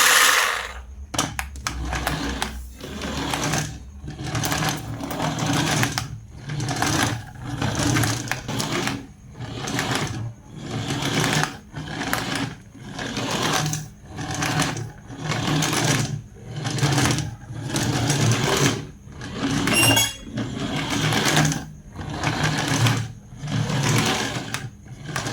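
Small electric motor of a toy RC car whirring in repeated short bursts, about one a second, as it is run on and off. Briefly, near the end, a high electronic beeping.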